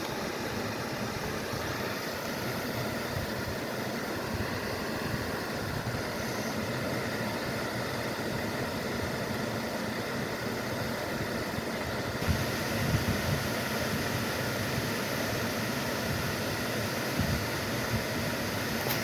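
Waterfall: a steady rush of falling water, even and unbroken, with a few low bumps in the second half.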